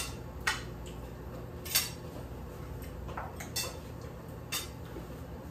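Cutlery clinking and tapping against plates and a plastic serving container while people eat: about six separate sharp clicks, the loudest at the very start, over a low steady hum.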